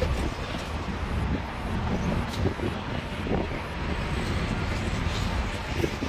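Steady traffic and engine noise heard from the open top deck of a moving double-decker tour bus, with the low sound of the bus's own engine underneath.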